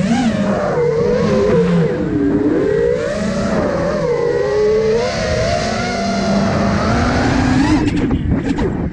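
Electric motors and propellers of a 5-inch FPV freestyle quadcopter (iFlight Nazgul Evoque F5) whining, the pitch rising and falling continuously with the throttle. Near the end the pitch climbs, then the sound breaks into a few short choppy gusts.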